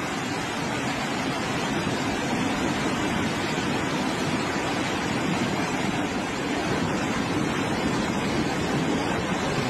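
Flooded river rushing past its bank, a steady noise of fast-moving water.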